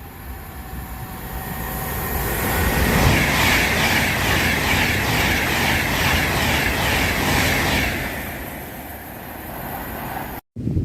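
A train passing at speed: the noise builds over a few seconds, then the wheels clatter in a rapid regular rhythm over the track before the sound fades away. It cuts off suddenly near the end.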